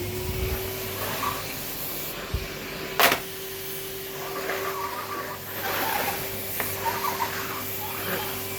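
Numatic Henry cylinder vacuum cleaner running steadily with its motor hum and airflow hiss, while the floor nozzle scrapes and rubs across the floor. There is a single sharp clack about three seconds in.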